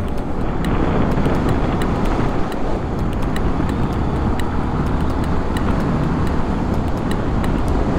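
Motorcycle riding at steady road speed: the engine runs evenly under a steady rush of wind and road noise.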